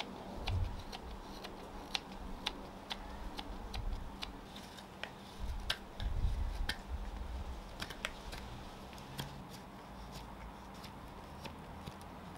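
Carving knife slicing shavings off a nectarine-wood fork blank: a string of short, crisp snicks at an uneven pace, with a couple of dull low bumps.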